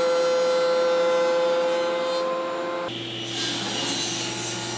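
Benchtop thickness planer running with a steady high whine as a cherry rail feeds through; about three seconds in the sound changes abruptly to a table saw running and ripping a board, a lower hum with a hissing cut.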